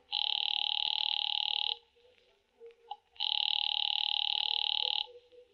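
Telephone bell ringing twice, each ring a little under two seconds long with a fast rattling flutter, the rings about a second and a half apart: a call ringing through at the other end.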